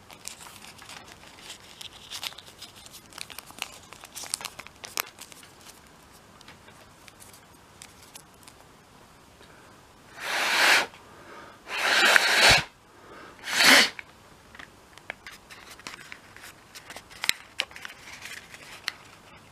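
Three hard puffs of breath blown into a folded-paper origami balloon to inflate it, each a short rushing blast. Faint crinkling and ticking of the paper being handled before and after.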